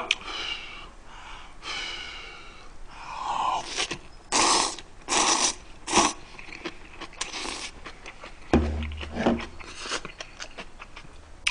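A man slurping spicy black-bean instant noodles off chopsticks in several short, loud sucks about four to seven seconds in, with quieter breathing and eating sounds around them. A dull low bump comes about eight and a half seconds in.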